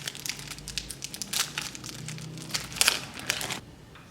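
Foil wrapper of a Pokémon card booster pack crinkling in the hands as the pack is opened, a quick run of crackles that stops about three and a half seconds in.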